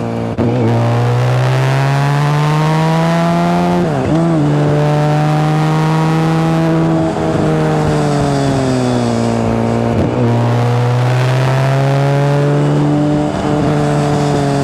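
BMW K1600GT's inline six-cylinder engine running under way with a steady, smooth note. Its pitch dips briefly and recovers about every three seconds.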